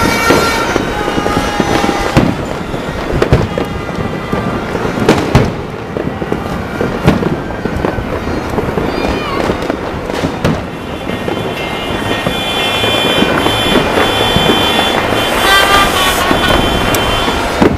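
New Year's Eve fireworks and firecrackers going off nonstop: a dense, overlapping stream of bangs and crackles, with no pause.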